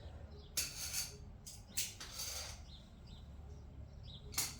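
Short scraping and rustling sounds of tools and parts being handled, four times over a steady low hum.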